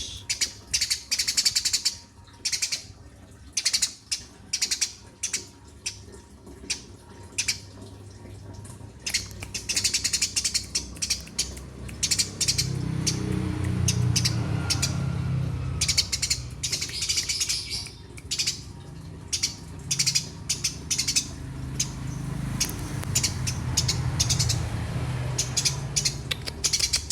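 Eurasian tree sparrow chirping persistently, in dense runs of short, sharp chirps with brief pauses between. From about halfway through, a low steady hum runs underneath and fades near the end.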